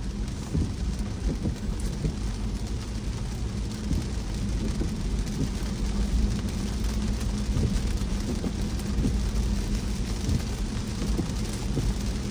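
Car driving on a wet road in rain: a steady low road rumble with an even rain hiss over it.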